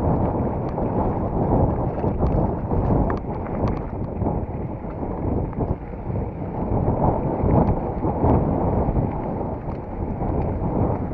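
Wind buffeting the microphone over the rumble of a mountain bike rolling along a dirt trail, with scattered small clicks and rattles.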